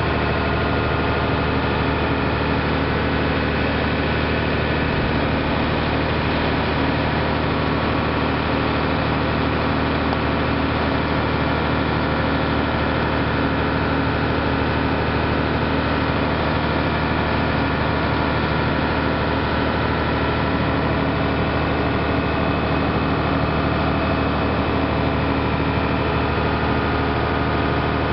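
Motorboat engine running steadily with the boat under way, a constant hum of several tones over a steady rushing noise.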